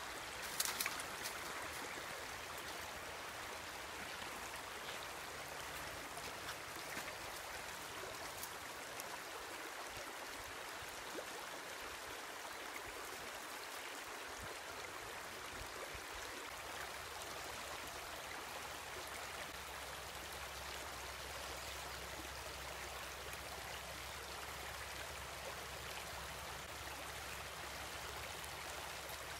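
Shallow rocky creek running, a steady rushing of water over stones. A few short sharp sounds stand out about a second in.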